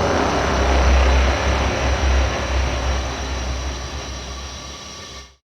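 Designed cinematic sound effect from a Kontakt sample library: a deep, heavy rumble under a dense noisy texture, loudest about a second in, fading slowly and then cutting off abruptly near the end.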